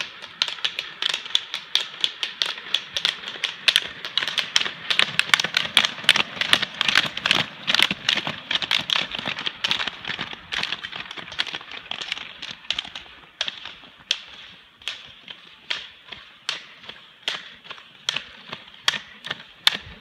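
Roller-ski pole tips striking asphalt: a rapid, uneven clatter of sharp clicks from a pack of skiers, over a steady hiss. The clicks are densest through the middle and thin out to spaced, regular clicks near the end.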